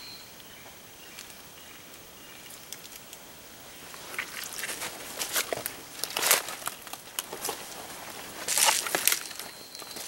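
Footsteps crunching through dry leaf litter and twigs on the forest floor, with brush rustling, starting about four seconds in after a few quiet seconds; the loudest crackles come near the middle and close to the end.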